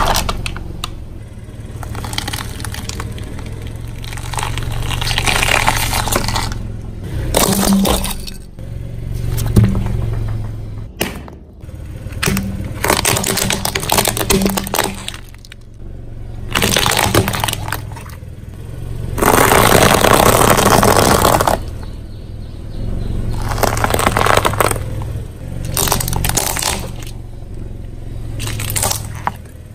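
Items crunching and cracking under a car tire in a series of separate bursts, about ten of them, over a steady low hum. The longest and loudest crunch comes about two-thirds of the way through.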